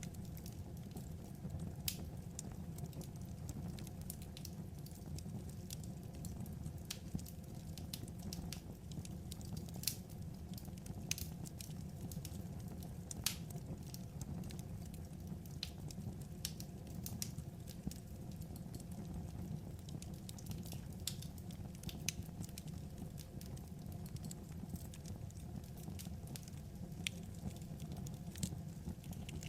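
Wood fire crackling: irregular sharp pops and snaps over a steady low rush of the burning logs.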